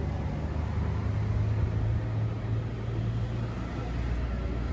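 Road traffic: a motor vehicle's engine running nearby, a steady low hum with street noise over it.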